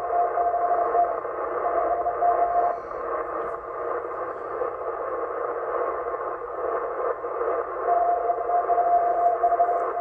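Morse code from the M12 number station heard through a Yaesu FTdx10 shortwave receiver: a single steady beep keyed on and off over a bed of receiver hiss, fluttering from aurora. The tone fades out about three seconds in, leaving only hiss, and comes back about eight seconds in.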